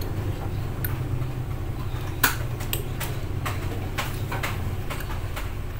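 Sharp clicks and taps of wire connectors being handled and pushed onto an aircon compressor's terminals, the loudest a little after two seconds in and several more following, over a steady low hum.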